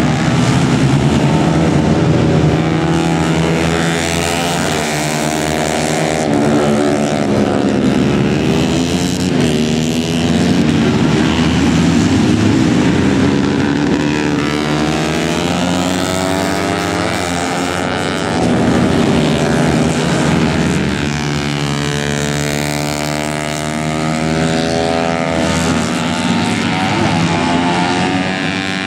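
Several race-tuned 150cc four-stroke underbone motorcycles racing, their engines revving hard and overlapping, the pitch climbing through each gear and dropping away again as the bikes brake and accelerate through the corners.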